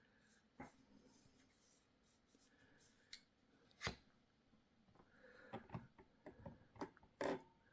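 Scattered sharp clicks and taps from handling a Graupner MC-32 radio-control transmitter and working its switches or keys: one about half a second in, a louder one near the middle, then a quick run of clicks near the end.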